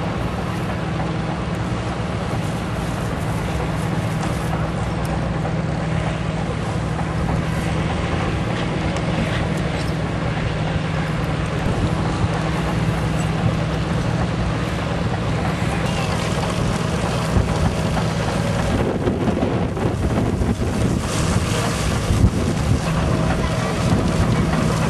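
A steady engine hum with wind buffeting the microphone. About nineteen seconds in, the hum is drowned by rougher, gusty wind rumble.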